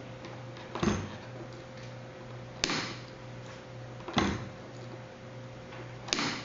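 Four sharp clacks, about one and a half to two seconds apart, over a steady electrical hum: the newly wired magnetic door lock kit being tested, powered from its Altronix SMP3 supply.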